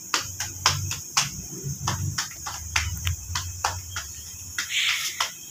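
Palms slapping a ball of roti dough back and forth to flatten it by hand: a quick, irregular run of sharp pats, about three a second, over a steady high hiss.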